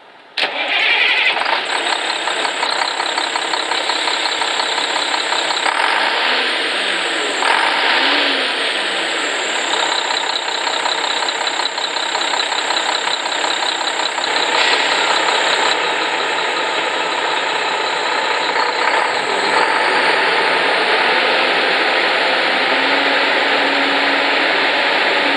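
1998 Mack CL713 dump truck's diesel engine running, loud and steady, with a brief rise and fall in pitch a few seconds in.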